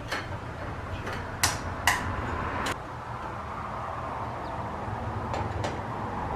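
Scattered sharp clicks and knocks of ceiling fan parts being handled and fitted back together, about six in all, over a steady background hiss.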